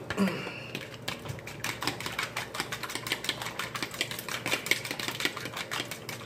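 Metal fork beating eggs in a plastic bowl, clicking rapidly against the sides several times a second.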